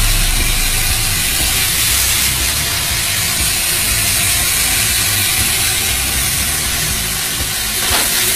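Steady loud hissing noise over a low rumble.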